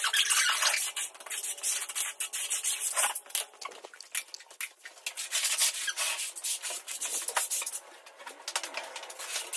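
Notched trowels scraping and combing tile adhesive across a concrete floor in repeated, irregular strokes.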